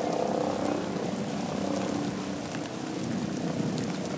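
A motor droning steadily over a light hiss of rain.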